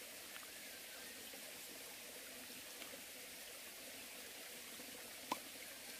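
Faint, steady rushing of a mountain stream flowing, with one brief click about five seconds in.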